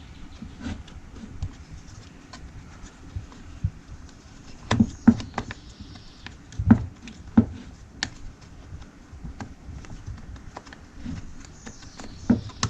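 Irregular clicks and light knocks from handling a chainsaw's covers and parts while taking it apart, bunched together in the middle with one more near the end.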